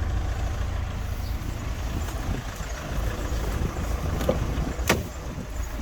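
Steady low rumble around a car, with two sharp clicks about four and five seconds in as a trailer-wiring adapter is pulled out of the tow bar socket.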